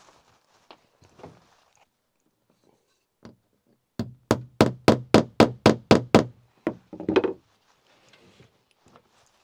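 A hammer striking wood: a quick run of about ten sharp blows, roughly four a second, each with a short low ring, then a few lighter knocks.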